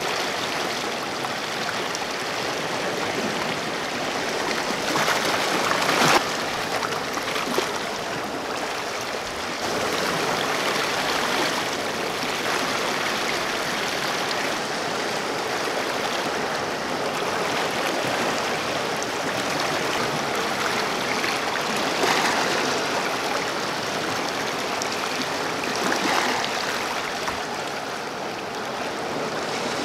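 Sea waves washing in. A steady rush of water swells louder about six seconds in and twice more in the last third.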